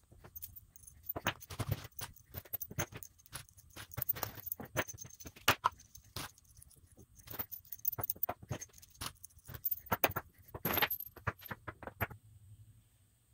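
Small steel hardware (bolts, nuts, washers and bolt-mounted bearings) clinking and jingling as it is handled in the hand and set down on a plywood workbench. The sound is irregular clicks and rattles throughout, busiest near the middle and about three quarters of the way through.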